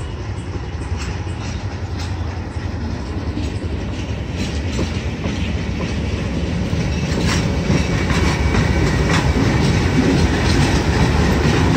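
ALCO WDG-3A diesel locomotive's 16-cylinder engine running under power as it pulls a departing passenger train past, its low drone growing steadily louder as it nears. Wheels click over rail joints in the second half.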